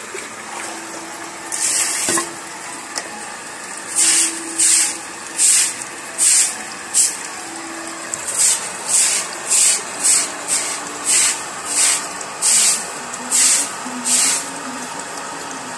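Electric surface water pump running with a faint hum while its outlet pipe spurts water into a bucket in irregular hissing gushes, about one to two a second.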